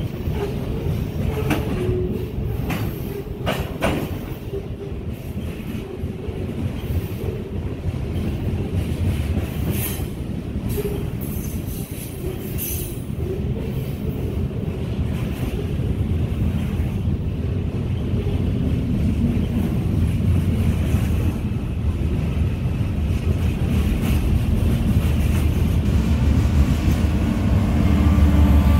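BNSF freight train's covered hopper cars rolling past below: steady wheel rumble with scattered clicks and wheel squeals. Near the end a diesel locomotive's low engine rumble grows louder as it comes close.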